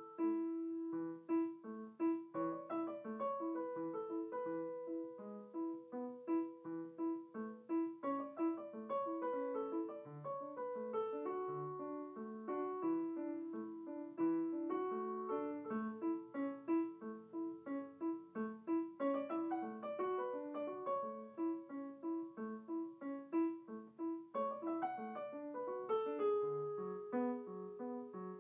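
Improvised solo piano music, a steady flow of short notes.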